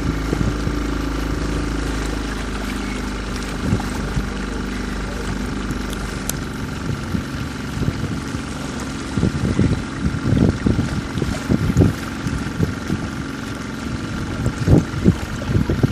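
Motorboat engine running steadily as the boat moves across the water. In the second half, irregular buffeting bursts come on top of the engine.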